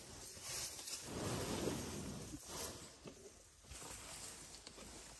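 An African elephant's trunk sniffing and blowing air at close range, a breathy rushing sound that swells about a second in, with dry grass rustling.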